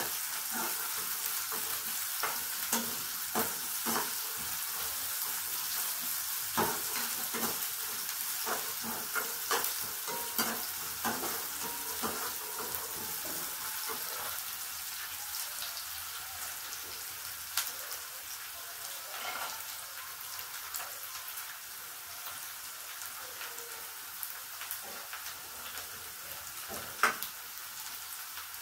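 Sliced onions and garlic sizzling in hot oil in a non-stick pan, with a steady hiss, while a perforated steel spoon stirs and scrapes them, clicking against the pan often in the first half and less later. A single sharper knock near the end.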